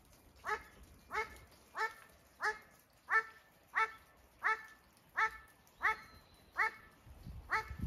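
An animal's short call, repeated eleven times in a steady series of about one and a half calls a second, each call dropping slightly in pitch.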